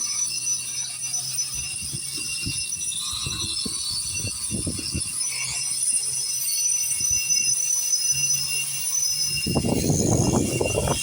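Power grinder grinding paint off a concrete foundation wall, running with a steady high whine and an uneven low rumble.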